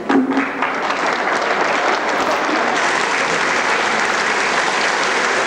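Large audience applauding, a dense, steady clapping that holds at an even level.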